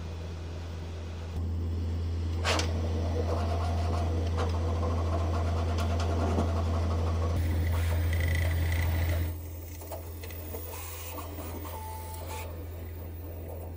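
Bambu Lab P1P 3D printer running a print, with a steady low hum under shifting whirring tones. It gets louder about a second and a half in and drops back about nine seconds in.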